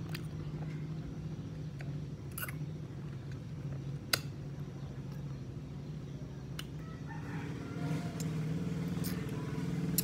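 A steady low motor hum, a little louder near the end, with a few sharp clicks, the loudest about four seconds in.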